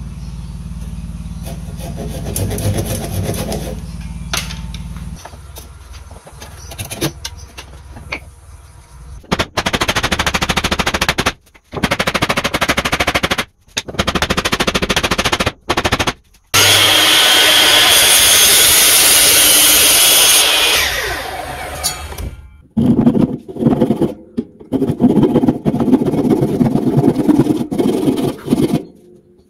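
Workshop tool sounds cut together: a steady low hum, then stretches of rapid clicking, then a loud, steady machine noise for about four seconds. Near the end come the repeated back-and-forth strokes of a Japanese rip saw cutting a block of hardwood held in a vise.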